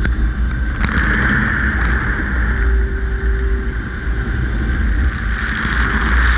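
Tunnel car wash high-pressure rinse arches spraying water onto a car's hood and an outside-mounted camera: a steady hiss of spray over a low rumble, with a few sharp ticks of droplets hitting the housing.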